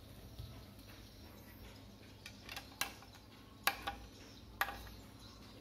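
A handful of sharp metallic clicks and taps from a screwdriver working at the screw hole of a monitor's metal stand, starting about two seconds in.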